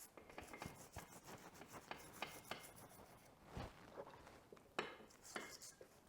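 Brass wire brush scrubbing baked-in dirt off a wet aluminium dirt-bike rear brake caliper: faint, irregular scraping strokes with scattered clicks.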